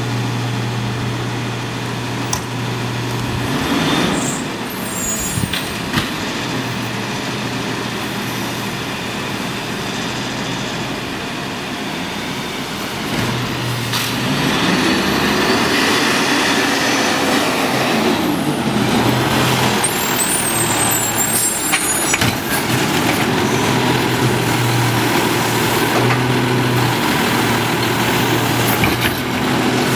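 Peterbilt garbage truck with a McNeilus body: its diesel engine idles steadily, then from about halfway it revs up and down repeatedly as the hydraulic arm lifts and tips a cart into the hopper. A couple of brief high hisses and a few clanks are heard along the way.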